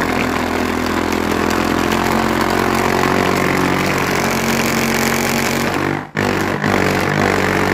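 Handheld massage gun's copper-wound electric motor running hard with a loud, steady buzz. About six seconds in it cuts out briefly twice, then picks straight back up.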